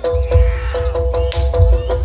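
Jaranan gamelan music through a bass-heavy sound system: a metallophone note struck rapidly over and over, about five times a second, over deep bass beats. A single sharp crack cuts through about a second and a half in.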